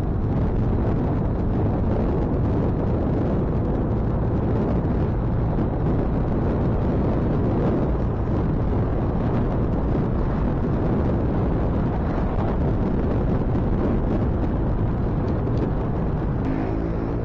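Wind rushing over the microphone and a motorcycle's engine running steadily while riding along a road. A short pitched sound joins near the end.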